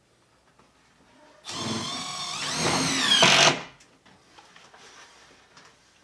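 Cordless drill driving a screw into a ceiling return-air box: the motor whines for about two seconds, climbing in pitch and loudness, then stops abruptly.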